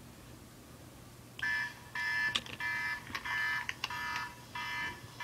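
A phone ringing: an electronic ringtone in repeated short pulses, about every two-thirds of a second, starting about a second and a half in, with a few sharp clicks among the rings.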